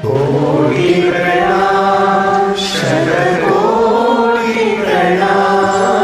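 Several voices singing a devotional bhajan together in long held, slowly gliding notes over a steady low drone.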